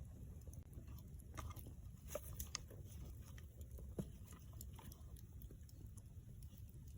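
Campfire crackling faintly: scattered sharp pops and snaps of burning wood, a few louder ones around two and four seconds in, over a steady low rumble.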